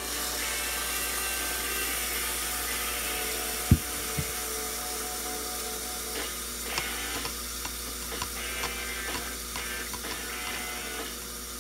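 Ground bison burger patties sizzling on a George Foreman grill, a steady hiss, with one sharp knock about four seconds in and scattered light clicks and pops through the second half.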